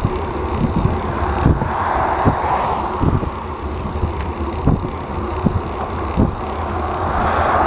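Wind rumbling on a bicycle-mounted action camera's microphone, with occasional low thumps. Cars passing on the road make a rushing hiss that swells about two seconds in and again, louder, near the end.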